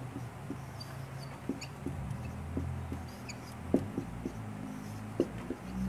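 Whiteboard marker writing Arabic script on a whiteboard: scattered light taps and squeaks of the tip over a low steady room hum.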